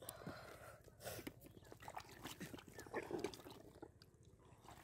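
Bare hands digging into and pulling apart wet mud: faint squelches and soft knocks of clods breaking, coming irregularly.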